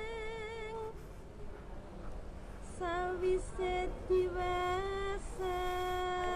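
A high female voice humming a slow, wavering tune of long held notes with vibrato. One held note fades about a second in, and after a pause a string of held notes starts about three seconds in.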